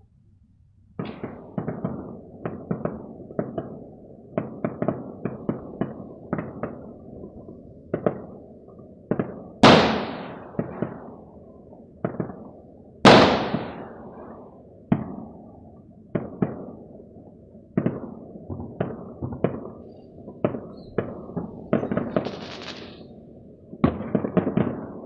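Fireworks and firecrackers going off across the city: a dense run of sharp bangs starting about a second in, echoing between buildings. Two much louder, nearer booms come about ten and thirteen seconds in, and there is a short crackling hiss near the end.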